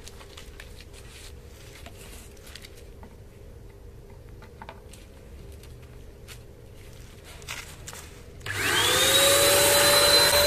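A few light clicks and rustles, then about eight and a half seconds in a Vortex electric paint sprayer switches on: its whine rises quickly to a steady high pitch over a loud, even rush of air as it starts spraying enamel.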